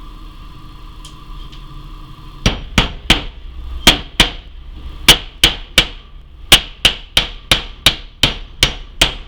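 Hammer driving a long galvanized nail, its tip flattened so it pounds through rather than splits the cheap wood, into a joint of an IKEA chest. About sixteen sharp strikes begin a couple of seconds in and come in quick runs of two or three.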